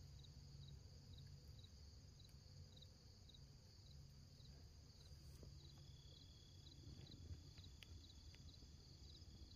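Faint crickets and other insects: a chirp repeating about twice a second over a steady high trill, with another steady trill joining about six seconds in.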